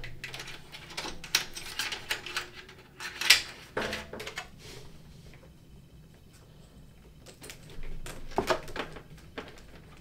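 Hands fitting parts into a desktop PC case: a scatter of small clicks and knocks, the sharpest about three seconds in, then a quieter stretch with a few more clicks near the end.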